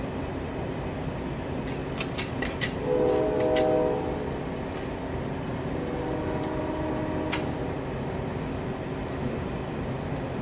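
Steady rumble of an idling train at the platform, with sharp metal clanks as the brake hose couplings between locomotive and coach are handled. A train horn sounds for about a second some three seconds in, the loudest sound, and again more faintly around six to seven seconds in.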